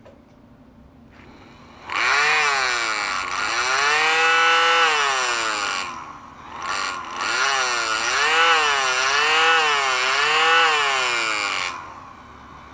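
Small 1/15-horsepower electric motor, rated at 3000 RPM, running free with nothing attached. Its whine starts about two seconds in and rises and falls in pitch again and again as the speed is varied with a foot pedal. It cuts out briefly in the middle, then stops near the end.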